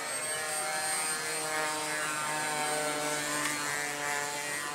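Motor of an RC model airplane whining in flight, its pitch shifting up and down as it manoeuvres.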